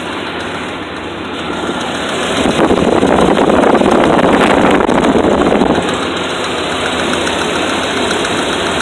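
Pickup truck's petrol engine idling under the open hood, misfiring with a quick ticking that the owner takes for a lifter tick. The misfire comes from spark plug boots that have come off three plugs. The engine gets louder for about three seconds in the middle.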